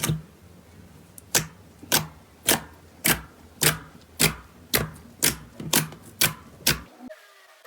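Slime being pressed or poked in a steady rhythm, each press giving a sharp click or crackle, about two a second and a dozen in all. The sound stops abruptly about seven seconds in.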